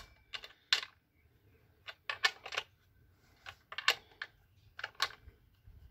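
Light metallic clicks and taps of a spanner on the bar nuts of a Husqvarna 120 Mark II chainsaw as the nuts are tightened down, irregular and about a dozen in all, the sharpest right at the start.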